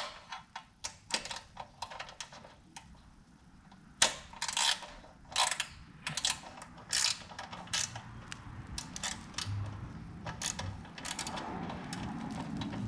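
Irregular metallic clicks and scrapes of a hand tool turning a screw to tighten a kill switch's mounting clamp onto a handlebar.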